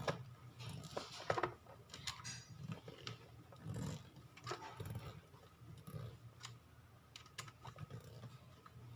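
Irregular small clicks and rattles of a 2.5-inch SSD being handled and fitted into a plastic laptop drive caddy.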